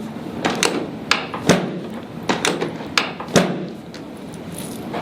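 Chiropractic treatment table's mechanism clacking as its sections are set to move: about eight sharp knocks in the first three and a half seconds, then it goes quieter.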